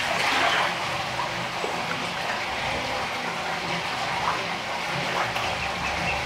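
Steady rush of running water in an alligator's pool, with a brief louder splash right at the start as the alligator's head breaks the surface.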